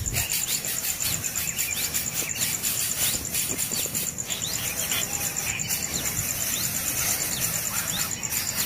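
Nestling birds begging for food with short, high chirps that sweep quickly in pitch, repeated every second or so, over a steady, rapidly pulsing high-pitched insect buzz.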